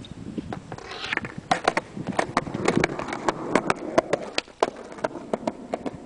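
Skateboard rolling past on concrete: a rolling wheel noise that builds about a second in, with a run of sharp clicks and clacks, easing off after about five seconds.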